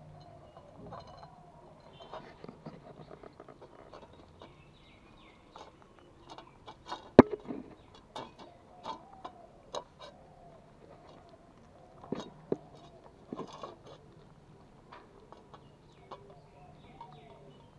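Pomeranian puppies eating from a stainless steel bowl: a run of sharp clicks and clinks against the metal, with one loud knock about seven seconds in.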